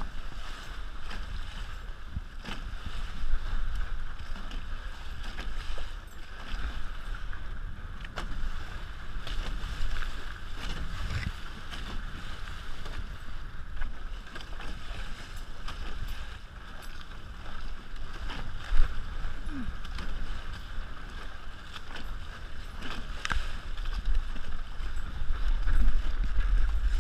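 Wind rumbling on a head-mounted GoPro and water rushing past the hulls of a Hobie 16 catamaran under sail, with scattered clicks and knocks as the sheets are worked.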